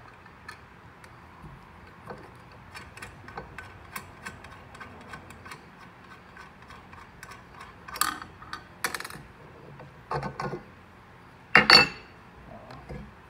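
Light metallic ticks and clinks of hands working at a turbocharger's oil drain fitting, then a few louder metal clanks on a steel welding table, the loudest near the end.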